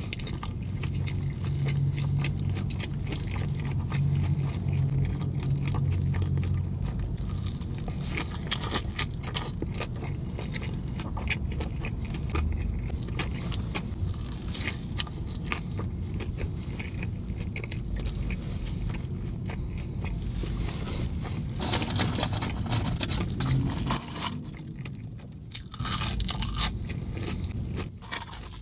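Close-up chewing and biting of a breaded fried fish sandwich, with many small crunching clicks throughout. A steady low hum sits under the first several seconds.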